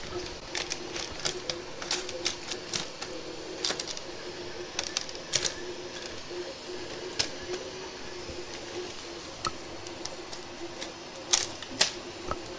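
Irregular light clicks and taps of hands handling and fitting parts on a V-slot aluminium-extrusion frame and its control box, with two sharper clicks near the end, over a faint steady hum.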